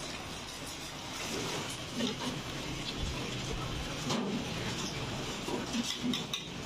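Wire balloon whisk beating a runny flour-and-water batter in a large steel pot: wet sloshing with scattered sharp clicks.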